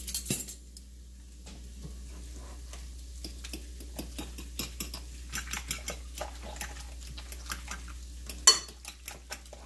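Hands squishing and kneading raw ground beef with egg, ketchup and seasonings in a bowl to mix meatloaf: a run of irregular wet squelches and little clicks, with one sharp knock about eight and a half seconds in.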